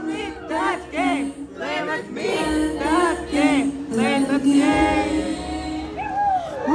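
Live synth-pop song over a concert PA: a female lead vocal with sliding, arching melodic runs over a steady low synth bass, heard from the audience in a large hall.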